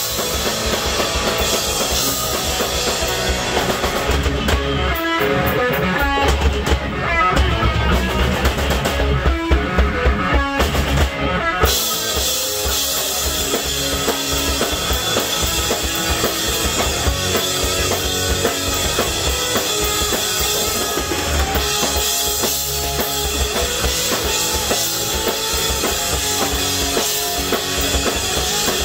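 Punk rock band playing live: electric guitars, bass guitar and drum kit. About four seconds in, the cymbals drop out for a stop-start stretch of hits together, and the full band comes back in near the twelve-second mark.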